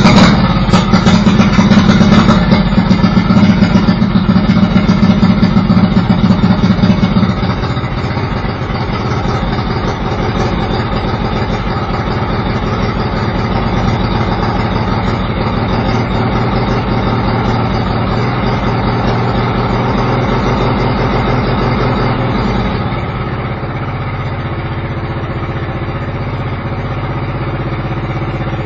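Lawn mower engine running loud through a short straight exhaust pipe fitted with a makeshift tip cut from a paint can lid. It runs hardest for about seven seconds, then settles lower, and drops again to a slower idle near the end.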